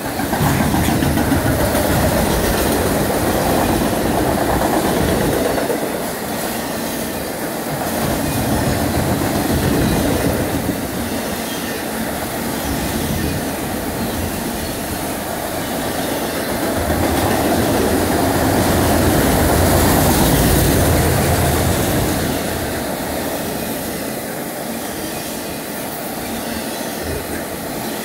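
Autorack freight cars rolling past close by: a continuous rumble and clatter of steel wheels over the rails. It swells louder and eases off in waves every several seconds.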